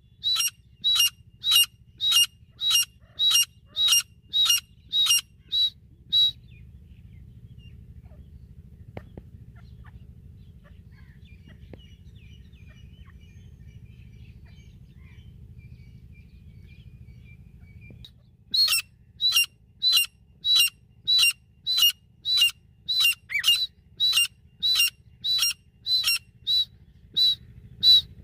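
Female grey francolin (desi teetar) calling: a regular series of high, ringing calls about two a second. It stops about six seconds in and starts again after a pause of some twelve seconds, running on to near the end.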